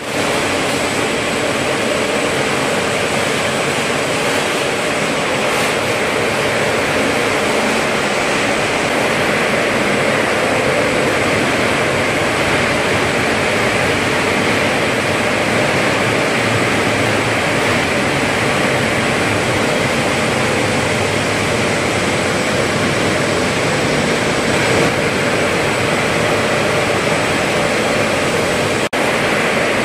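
Textile spinning machinery running on a mill floor: a loud, even rush of machine noise with a faint steady high whine, with a brief dropout about a second before the end.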